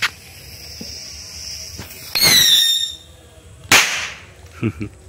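Two mini firecracker rockets go off from a tin can. A fizzing launch is followed about two seconds in by a loud whistle that falls in pitch, then a single sharp bang near four seconds in.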